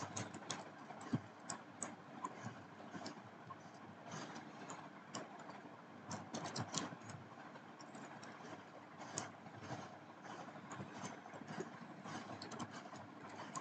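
Plastic fidget spinner cube puzzle being twisted by hand during a solve: faint, irregular clicks and clacks of its layers turning, over a steady hiss.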